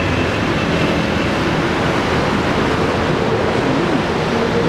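Steady, loud traffic noise of a busy city street, a dense even rumble and hiss of passing vehicles.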